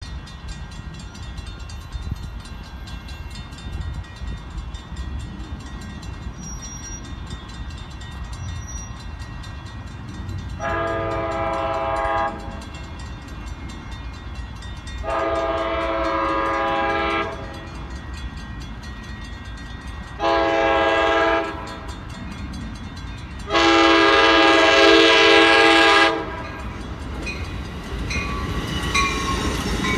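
Amtrak Surfliner passenger train's horn, a multi-tone chord, sounding the grade-crossing signal: two long blasts, one short, then a final long one, the last the loudest. Near the end the train's rumble and wheel noise grow as it arrives.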